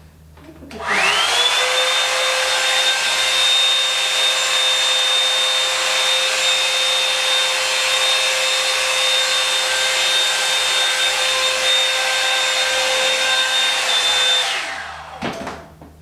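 Revlon One Step Root Booster round-brush hair dryer switched on: its motor spins up about a second in, then runs steadily with a high whine over rushing air. Near the end it is switched off and winds down.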